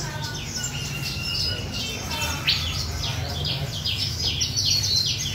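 Many caged songbirds chirping and calling at once: a dense run of short, high chirps, thickening in the last couple of seconds, over a steady low hum.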